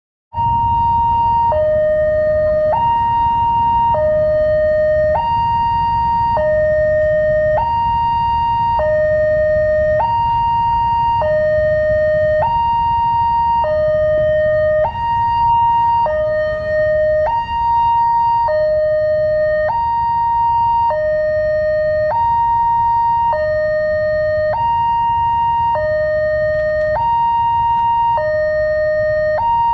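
Railway level-crossing warning alarm of the newer Daop 8 Surabaya type, sounding while the barrier is down. It alternates steadily between a higher and a lower electronic tone, each held about a second, over a low rumble.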